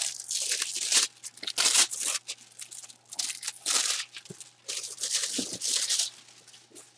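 Sealed cardboard jersey box being torn open, then the plastic bag holding the jersey crinkling as it is pulled out: a run of tearing and rustling bursts that fade out about six seconds in.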